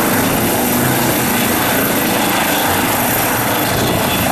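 Eurocopter EC135 air-ambulance helicopter hovering just above the ground, its rotor and turbines running with a steady, dense noise.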